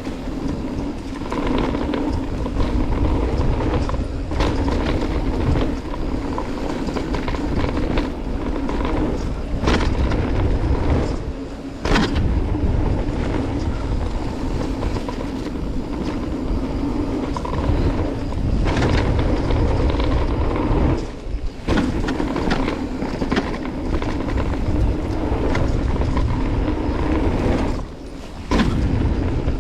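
Mountain bike ridden fast down a dirt trail: tyres rumble and the bike clatters and rattles over the bumps, with sharp knocks from hard hits, several of them spread through the run. There is heavy rumble on the mic from the riding.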